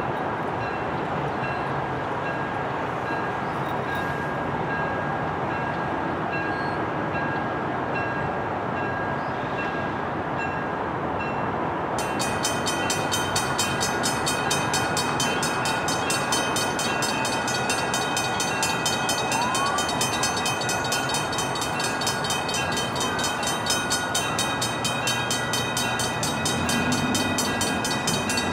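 Steady rumble and hiss of a train, with faint steady tones, growing a little louder and brighter about twelve seconds in.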